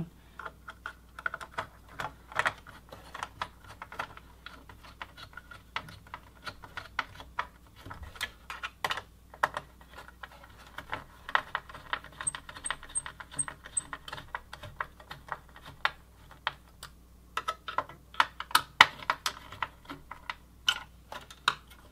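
Desktop computer parts being handled and fitted together during reassembly: irregular light clicks and taps, busiest near the end.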